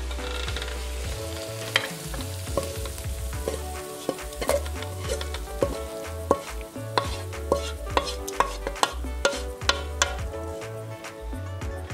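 A metal spatula scrapes and knocks against a coated wok as fried vegetable sauce is scraped out onto a plate, with hot food sizzling at first. The knocks come in a quick series of sharp strikes, about two a second, each with a short metallic ring.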